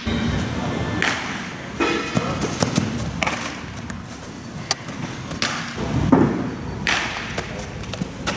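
Baseballs being fielded and thrown in a large indoor turf hall: a series of sharp, irregular knocks and thuds, each with a ringing hall echo.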